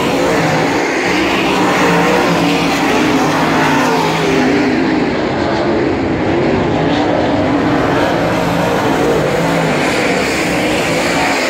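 Dirt late model race cars' V8 engines running hard around a dirt oval, a loud, continuous engine noise whose pitch wavers up and down as the cars lap.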